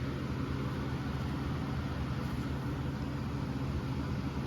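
Steady low background hum with an even hiss, unchanging throughout, like a machine running in the room.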